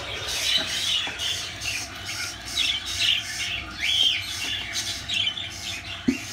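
Budgerigar chicks in a nest box calling: short, raspy chirps repeated several times a second, with one call rising and falling about four seconds in.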